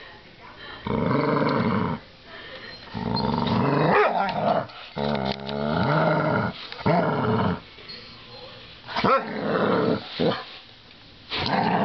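American Staffordshire terrier growling in repeated bouts of a second or two, the pitch rising and falling within each, as it tries to get at a wire coat hanger caught under a door.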